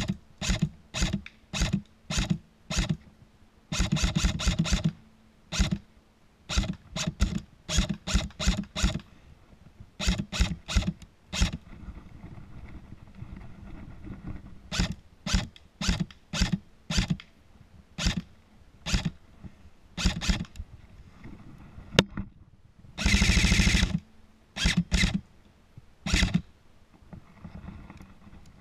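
Lancer Tactical M4-style airsoft electric gun firing: single shots at about two a second, a quick string of shots about four seconds in, and a full-auto burst of about a second near the end.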